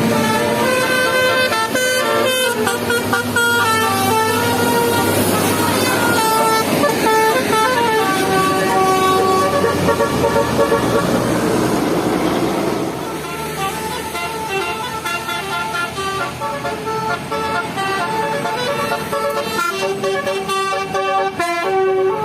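Basuri 'telolet' musical bus horn playing a tune of held notes that step up and down in pitch, over steady background noise. The tune grows a little quieter and changes character about halfway through.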